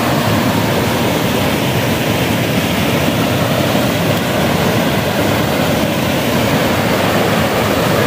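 Small waterfall pouring over a low rock ledge into a pool: a steady rush of churning water.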